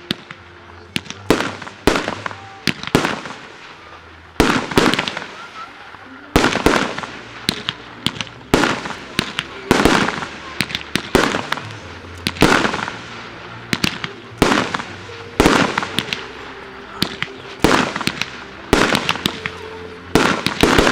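Aerial firework shells bursting in quick succession: sharp bangs about one to two a second, some in close clusters, each followed by an echoing tail.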